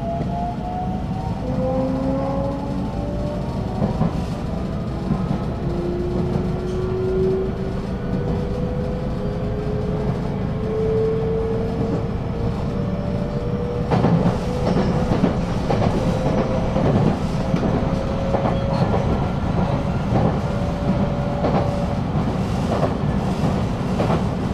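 JR West 223 series electric train heard from inside the carriage as it accelerates away from a station: the traction motors' whine rises in pitch in steps. From about halfway through the wheels clatter over rail joints, and the whine fades out near the end.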